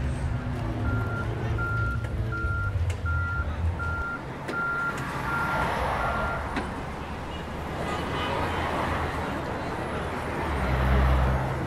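A vehicle's reversing alarm beeping about eight times at an even pace, roughly one and a half beeps a second, over a low engine rumble; after the beeps stop, outdoor noise carries on and the low rumble rises again near the end.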